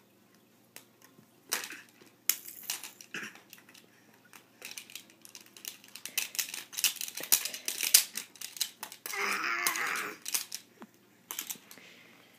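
A plastic mini hockey stick tapping and clattering against toys and the floor in irregular sharp clicks and knocks, thickest in the middle. About nine seconds in there is a louder, noisier stretch lasting about a second.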